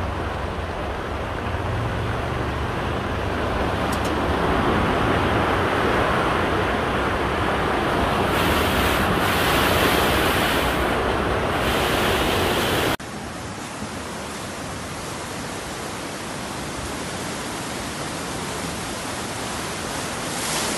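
Fast-flowing floodwater rushing and churning through a channel, heard as a steady water noise. About thirteen seconds in it cuts suddenly to a second, quieter recording of rushing floodwater.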